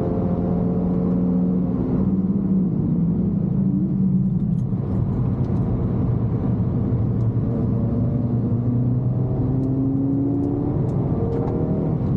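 Suzuki Swift Sport ZC32S's 1.6-litre four-cylinder engine heard from inside the cabin, at high revs at first, dropping in pitch as the car brakes for a corner, then rising again under acceleration out of it.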